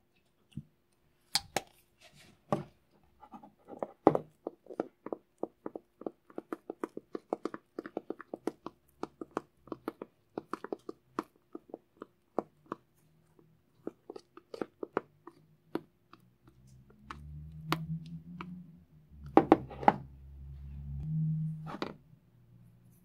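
A silicone spatula stirring a thick glue-and-cornstarch slime mix in a plastic bowl, a quick run of clicks and taps at about four a second. Near the end the stirring stops and gives way to low handling rumble with a few louder knocks.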